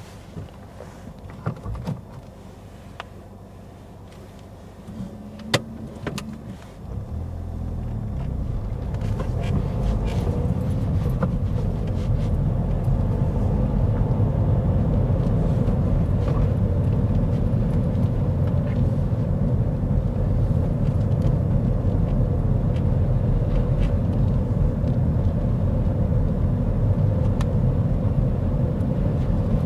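Heard from inside the cabin, a car sits quietly with a few scattered clicks, then pulls away about seven seconds in. Its engine and tyre noise on the wet road rise and settle into a steady low drone at around 20 mph.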